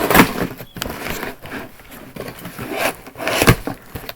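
Packaging rustling and scraping as an item is worked out of a mail box, with irregular crinkles and rubs, loudest at the start and again about three and a half seconds in.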